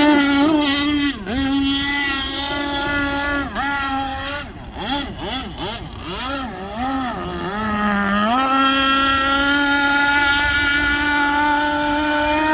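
The Zenoah 32cc two-stroke petrol engine of a radio-controlled speedboat running at high revs, a steady high engine note. About a second in the pitch dips briefly. Then for a few seconds in the middle the revs swing rapidly up and down and the sound fades somewhat, before it settles back to a steady high note.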